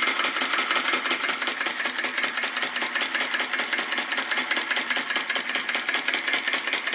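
Retrol VE-01 crossbeam flame-licker vacuum engine running on its first start, fired by a methylated-spirits flame, with a fast, even mechanical clatter from its valve gear and beam linkage. The clatter starts suddenly as the engine catches.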